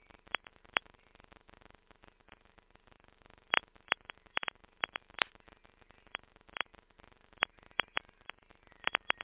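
Glitchy, grainy digital audio artefacts: irregular sharp clicks and crackles, some in quick clusters, over a faint hiss with no treble. This is the leftover of a song that was crushed to very low quality and failed, so no music is left.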